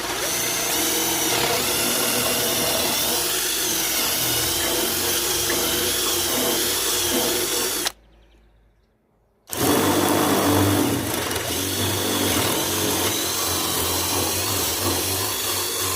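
Electric drill running under load, its motor pitch wavering. It stops for about a second and a half about halfway through, then starts again.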